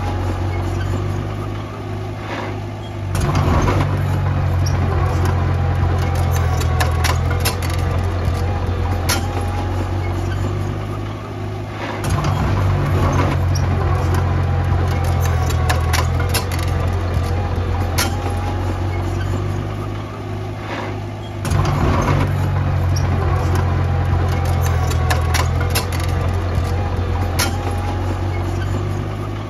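Diesel engine of heavy earthmoving machinery running throughout, getting louder three times, about every nine seconds, and easing off in between, with many sharp clicks and clanks over it.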